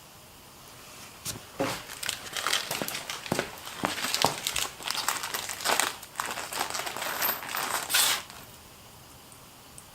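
Crinkling and rustling of packaging being handled: a dense, irregular run of crackles that starts about a second in and stops about eight seconds in.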